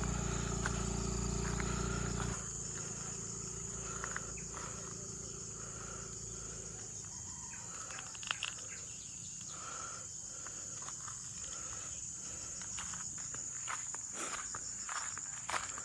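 Insects chirring in a steady high drone, with scattered footsteps and clicks, more of them near the end. A loud low rumble stops abruptly about two seconds in.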